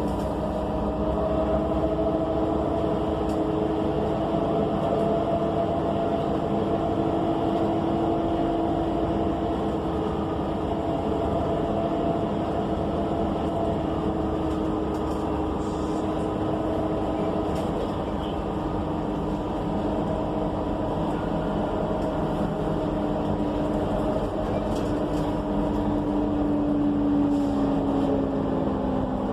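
Inside an ENC EZ Rider II bus, its Cummins Westport ISL G natural-gas engine and Allison transmission run under way over a steady rumble, with a steady whine that slides down in pitch near the end.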